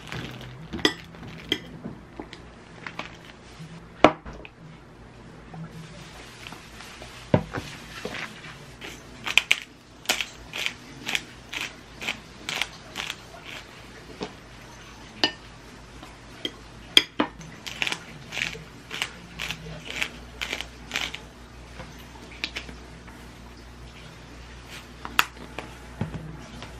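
Hand pepper grinder being twisted over a raw beef steak: a long run of crisp clicks, about two or three a second, with short pauses between bursts. Near the start there are a few knocks and rustles from plastic packaging being cut open.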